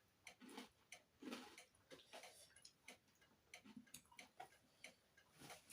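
Faint chewing close to the microphone: irregular small clicks and crunches of food being eaten, likely pork crackling.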